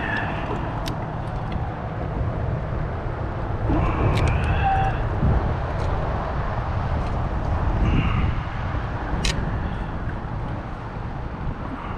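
Steady low rumble of wind and water noise on a camera microphone, with a few brief high chirps about every four seconds and a couple of sharp clicks.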